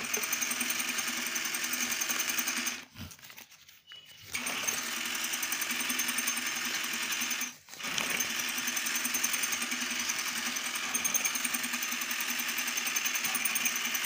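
The small electric motor of a toy ATM piggy bank, whirring as its roller draws a banknote into the note slot. It stops for about a second and a half about three seconds in, cuts out briefly again near eight seconds, then runs on.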